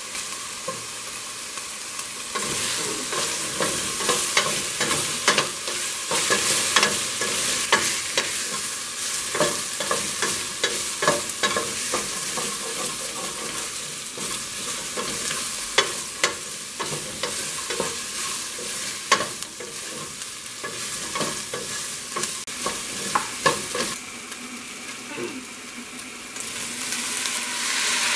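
Beef cubes and chopped onion sizzling in oil in a stainless steel pot, stirred with a wooden spoon that knocks and scrapes against the pot in irregular clicks over a steady frying hiss.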